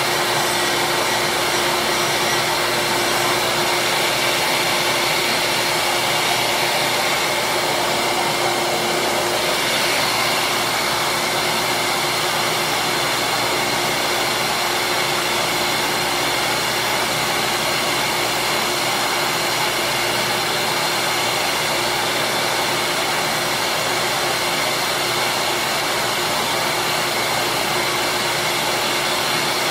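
Electric bench grinder running steadily, its motor hum and whine under a constant hiss as small plastic slider pieces are shaped against the wheel. The upper hiss shifts slightly about ten seconds in.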